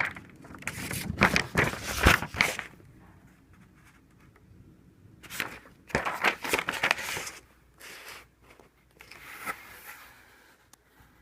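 A paper poster being handled and unfolded, its paper rustling and crinkling in three bouts with quieter gaps between.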